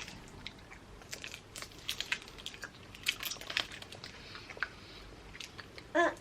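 A person chewing a Toxic Waste sour apple hard candy, with irregular faint crunching clicks. A short vocal sound comes near the end.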